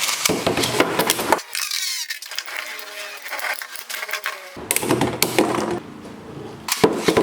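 Infinity Nado spinning tops spinning and clashing in a battle arena: fast runs of sharp clicks and scraping hits over a whirring ring. The hits come in two loud spells, at the start and again after the middle, with a quieter whir and falling pitch between them.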